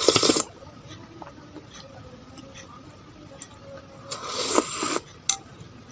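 Close-miked eating sounds from a bowl of es pisang ijo, the iced banana dessert: two short, loud, noisy bursts, one right at the start and a longer one about four seconds in, with faint clicks in between.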